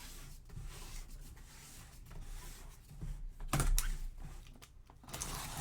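A cardboard box being opened and handled, with rustling and scraping and a few sharp clicks. The loudest handling comes a little past halfway and again near the end.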